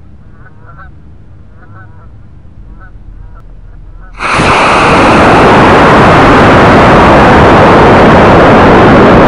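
Geese honking, then about four seconds in a sudden, very loud steady rush as the Estes C6-5 black-powder model rocket motor ignites and the rocket lifts off. The noise is picked up by a microphone riding on the rocket and carries on as it climbs.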